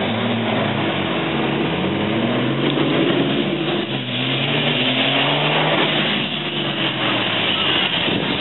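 Racing trucks' diesel engines accelerating hard from a standstill, the pitch climbing and dropping back at each gear change, several times over.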